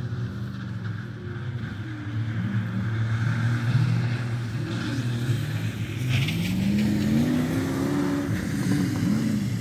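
Rally car engine revving hard on a dirt stage, its pitch climbing and dropping again and again through gear changes, growing louder as the car approaches.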